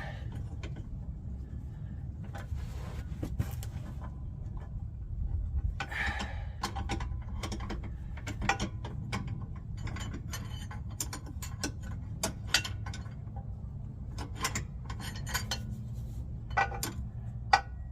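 Scattered metallic clicks and clinks of hand tools and bolt hardware (U-bolt, washers, nuts) being handled and worked against a skid plate bracket, over a steady low hum.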